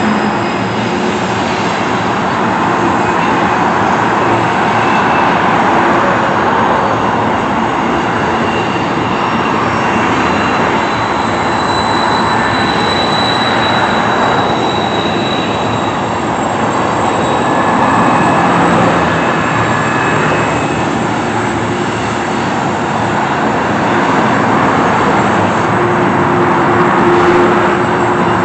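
BNSF coal train rolling across a steel railway trestle: a steady rumble of wheels on rail, with a thin high squeal coming and going. Near the end a steady diesel engine hum joins in as the rear locomotive comes up.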